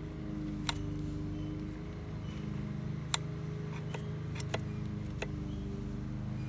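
A steady low motor hum with four short, sharp clicks scattered through it.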